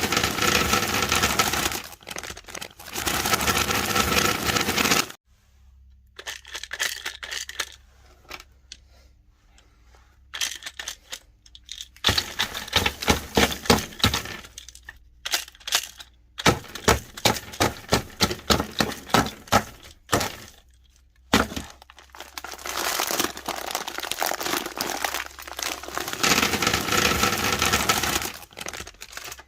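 Meat grinder crushing hard, crunchy candy: dense cracking and crunching that comes in long loud stretches. Around the first third it drops to scattered cracks over a low steady hum.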